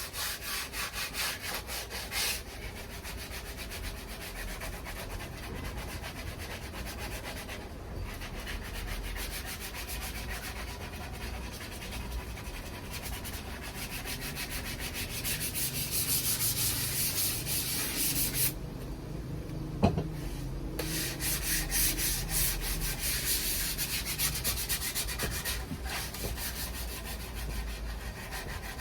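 Sandpaper rubbed back and forth on wood in a steady series of scraping strokes. The strokes briefly stop about two-thirds of the way through, with a single click in the pause.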